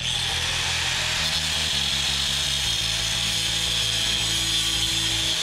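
Handheld angle grinder running steadily with a high whine as it grinds into metal clamped in a bench vise.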